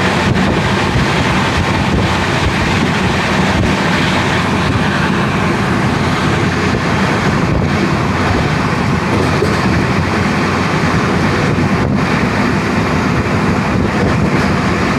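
Train running steadily at speed, heard from on board: a constant rumble of the carriage and wheels on the rails, with wind on the microphone.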